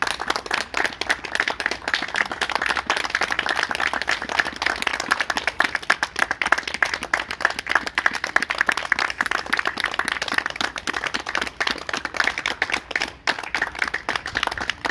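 A small group of police officers applauding with their hands, many claps overlapping in a steady run, with a momentary break near the end.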